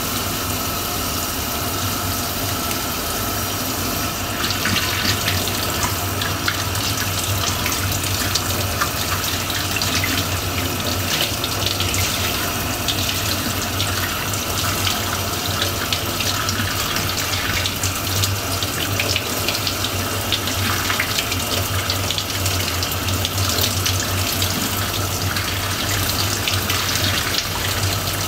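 Tap water pouring from a faucet filter's outlet into a stainless steel sink and splashing off a flashlight held in the stream. The splashing turns louder and hissier about four seconds in.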